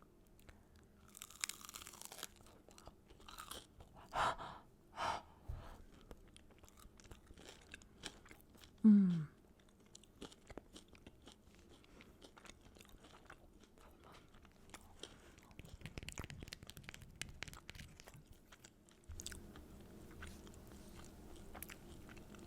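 Close-up biting into and chewing a crunchy corn tortilla filled with vegetables and black beans: a crunchy bite near the start, then many small crunches and wet mouth clicks. A short hummed "mmm" about nine seconds in is the loudest sound.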